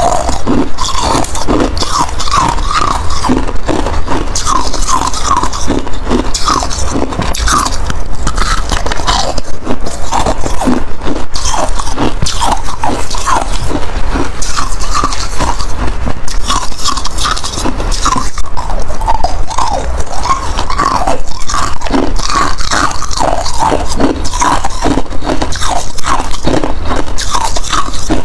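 Ice being bitten and chewed close to the microphone: loud, rapid crunching that goes on without a break.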